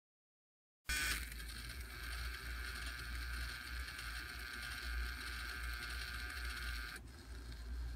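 Small geared DC motor running under speed control, spinning a wheel: a steady high whine over a low hum. The whine cuts off sharply about seven seconds in, leaving the hum.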